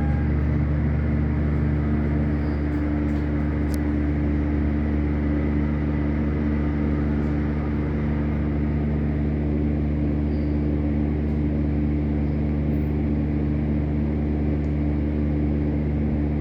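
Schindler hydraulic elevator running in travel: a steady low hum with several fixed tones.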